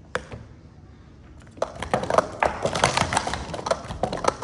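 Plastic sport-stacking cups clattering in a rapid run of quick sharp clacks as a stacker builds and collapses pyramids at speed on the mat, starting about a second and a half in. A single tap comes just after the start.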